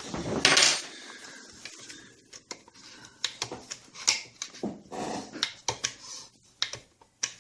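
Rancilio Rocky grinder's grind-adjustment collar being turned, giving a run of irregular sharp clicks and metal knocks as it locks into its settings; this shows the adjustment now catches in every position. A louder, noisier burst comes about half a second in.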